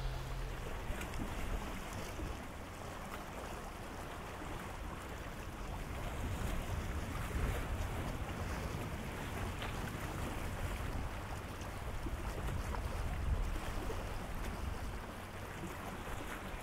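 Seaside outdoor ambience: wind buffeting the microphone over the steady wash of the sea, with a low rumble throughout.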